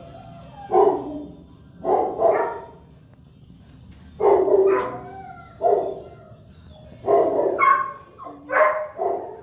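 Dog barking repeatedly in a shelter kennel, about ten loud barks in uneven groups of one to three.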